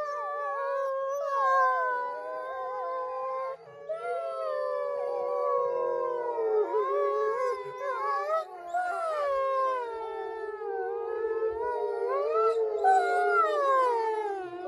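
Several wolves howling together in a chorus: long, overlapping howls at different pitches that glide up and down.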